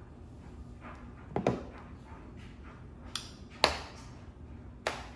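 Glass candle jars being handled and set down: a few sharp knocks and clicks, the loudest about three and a half seconds in.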